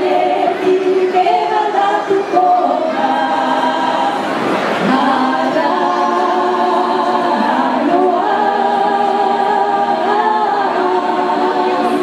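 A choir of many voices singing unaccompanied, holding long notes in harmony and moving from chord to chord every second or two.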